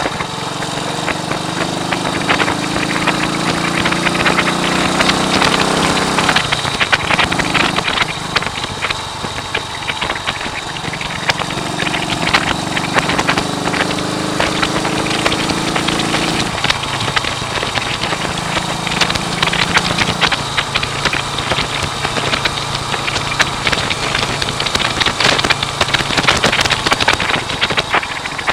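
1939 AJS Model 22's 250 cc single-cylinder engine running on the road. Its note climbs, drops away sharply about six seconds in and again about sixteen seconds in, then runs steadier. Heavy wind noise crackles and buffets over it throughout.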